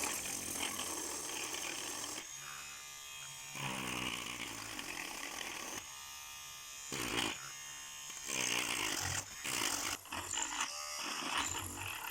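Homemade mini rotary tool's small DC motor whirring, with the sound changing abruptly several times as it runs.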